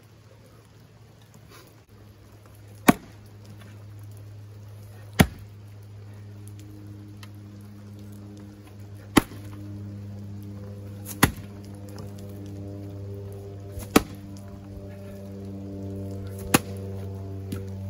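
An axe splitting firewood rounds: six sharp strikes, two to three seconds apart. Background music of held steady tones fades in under them and grows louder.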